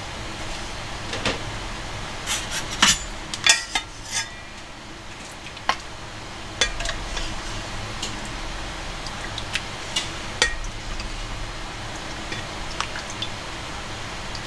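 Metal spatula and ladle clinking and scraping against a metal pot as rice porridge is stirred and scooped out: scattered sharp clinks, several close together a few seconds in, over a steady low hum.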